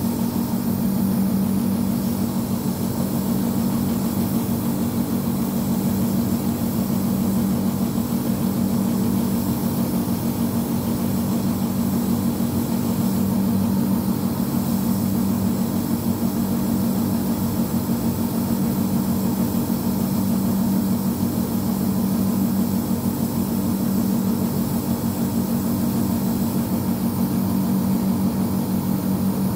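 LG split air conditioner's outdoor condensing unit running, a steady compressor hum with fan noise. The unit had been overcharged with freon and was not cooling, and some refrigerant has just been let out.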